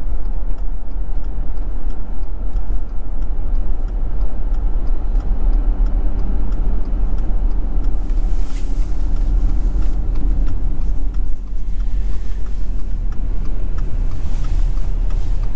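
Inside a car's cabin while towing a caravan: a steady low engine and road rumble with tyre noise. A faint regular ticking runs through the first seven seconds or so, and a brief rush of noise comes about eight seconds in.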